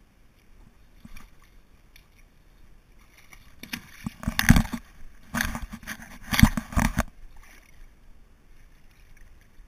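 A rubber inner tube being carried down a riverbank and set into shallow water: bumps and rubbing close to the microphone, loudest for about three seconds in the middle, with some water sloshing.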